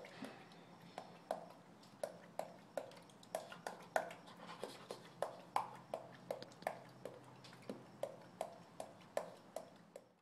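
Chimpanzee clacking its teeth while grooming another chimpanzee: a quick, uneven series of sharp clicks, about three a second. It is a grooming noise made with the teeth and lips, not the voice.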